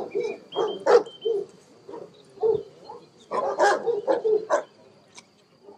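German shepherd dog barking, a run of short barks with a cluster of them a little past halfway.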